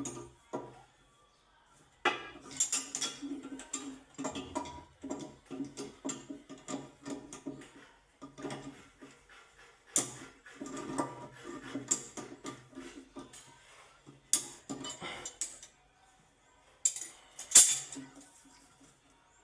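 Irregular clinking and clattering of hard objects being handled, with a sharper, louder clank about two thirds of the way through.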